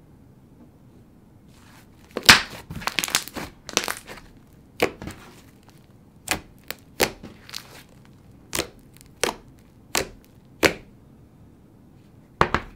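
Thick cloud-cream slime (a cloud slime mixed with a school-glue thick slime) being pressed, poked and stretched by hand, giving sticky pops and crackles: a cluster of crackles about two seconds in, then single sharp pops about every half second.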